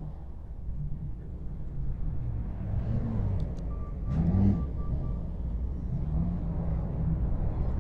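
Low rumble of wind and road noise on a bicycle-mounted action camera during a ride, with a motor vehicle passing that peaks about four and a half seconds in. A short run of quick, high, evenly spaced beeps sounds around the same moment.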